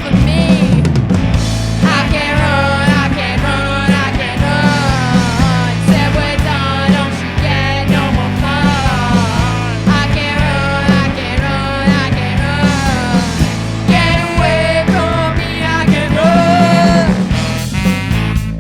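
A rock band playing live, with drums, bass guitar and electric guitar under a melody line, in a lineup that includes tenor and baritone saxophones and two vocalists. It is loud and continuous, with a steady beat.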